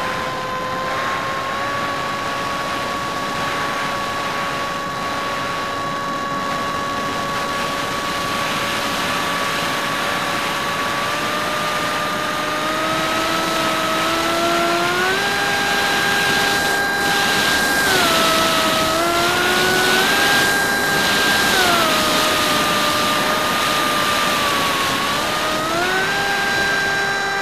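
Hymax 2700kv brushless inrunner motor spinning a 6x4 APC propeller in flight, heard from a camera on the airframe as a steady whine over wind rush. About halfway through, the whine starts stepping up and down in pitch several times as the throttle is opened and eased off.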